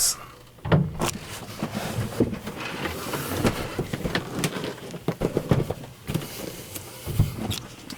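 Cardboard toy packaging being handled and turned over, with irregular knocks, taps and rustling scrapes.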